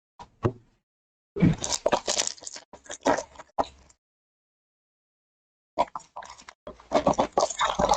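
Trading cards and pack wrappers being handled: short bursts of crinkling and card clicks, in two spells with a silent gap between.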